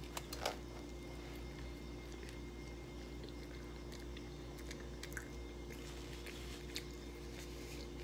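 A person biting into and chewing a soft pita wrap, with a few sharp clicks from the bite near the start and faint mouth sounds after. A steady low hum runs underneath.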